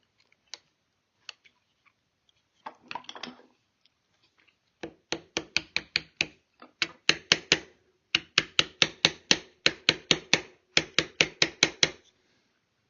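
Light mallet taps driving a wood chisel into a wooden rifle stock, in quick runs of five to seven strikes at about five a second, with short pauses between runs. The chisel is inletting the ramrod channel.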